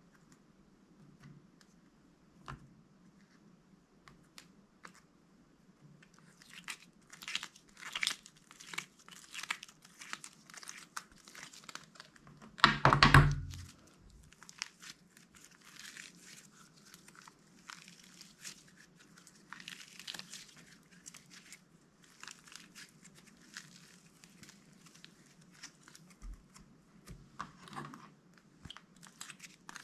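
Slime being worked by hand: dense crackling and popping clicks as it is pressed and stretched, with one louder, heavier sound about halfway through.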